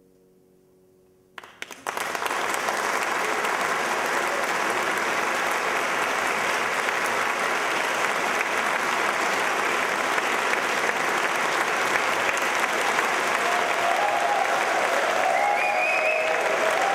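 Audience applause: after about a second and a half of hush at the close of the song, a theatre audience bursts into steady, dense clapping that holds on.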